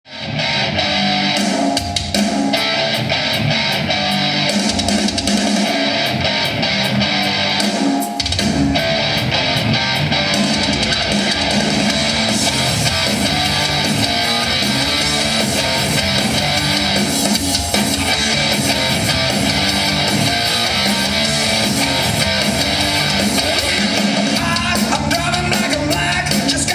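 Loud band music with guitar, bass and drums, starting suddenly out of silence and running on with a repeating bass line.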